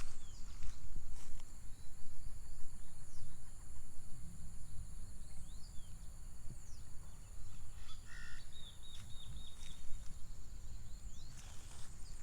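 Tropical outdoor ambience: a steady high-pitched insect drone with scattered short bird chirps, including a quick run of repeated notes about nine seconds in, over a low wind rumble. A few footsteps come near the end.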